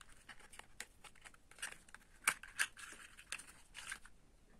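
Faint paper rustling and a few sharp clicks as a small cardboard carton is opened by hand and a small tube of spot gel is slid out.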